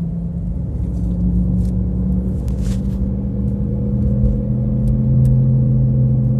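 Worn front-left wheel hub bearing droning inside the cabin of a moving car, a steady low hum over the road noise that grows louder in the second half. The hum comes in between about 30 and 80 km/h and is the sign that the hub bearing is faulty.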